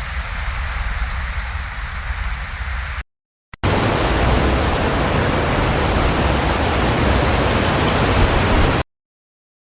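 Wind blowing through trees: a steady rushing noise that cuts off after about three seconds. After a short gap, a louder, deeper gust of wind in the trees runs for about five seconds and stops abruptly, leaving silence near the end.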